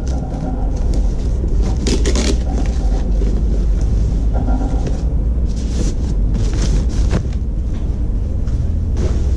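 Plastic foam packaging wrap rustling and crinkling in short spells as it is pulled off a boxed NAS enclosure, over a steady low rumble.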